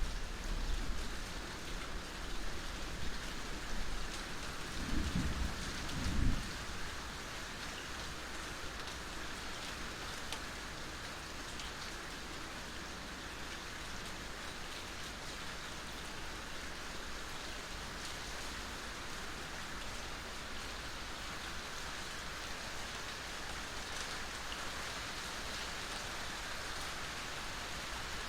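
Steady rain falling with scattered water drips. A short low rumble comes about five to six seconds in.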